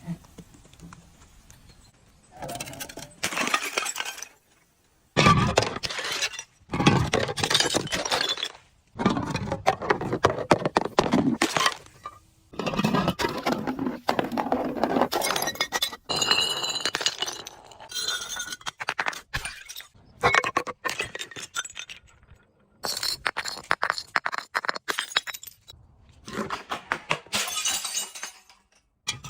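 Glass bottles being crushed and broken: repeated bouts of crunching and clinking shards, each lasting one to three seconds with short pauses between.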